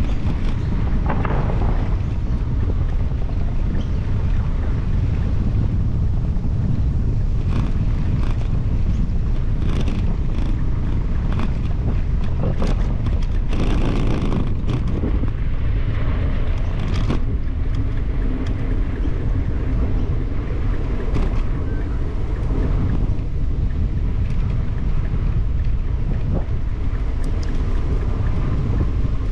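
Wind buffeting the microphone of a camera on a moving bicycle: a steady low rumble, with scattered light clicks and rattles from the bike.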